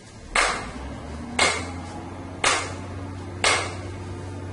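Staple gun fired four times, about one shot a second, fastening pool table cloth as it is stretched over the bed. A low steady hum runs underneath after the first shot.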